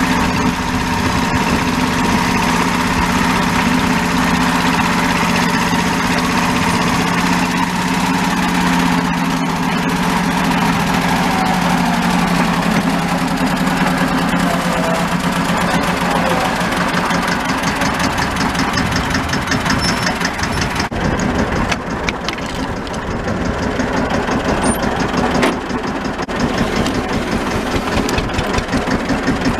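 1964 Deutz D15 tractor's single-cylinder air-cooled diesel running steadily while pulling a plough, with a fast, even firing beat. About two-thirds of the way through it drops a little in level for a few seconds, and the separate firing strokes stand out more plainly.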